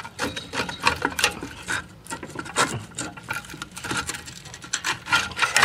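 Needle-nose pliers clicking and scraping against the steel return springs and shoes of a drum brake as the springs are worked off: a quick, irregular run of small metallic clicks and taps.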